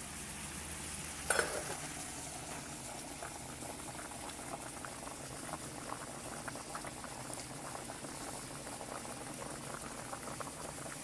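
Water at a rolling boil in a stainless steel pot of sweet-corn pieces, bubbling steadily with many small pops. A sharp click about a second in.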